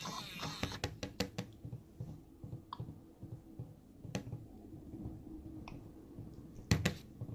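Irregular light clicks and taps on a plastic Hatchimals toy egg, over a low rumble; the loudest clicks come as a pair near the end.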